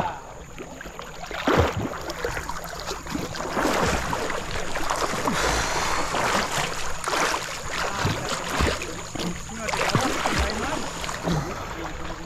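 Water splashing around a kayak, swelling every second or two in time with paddle strokes.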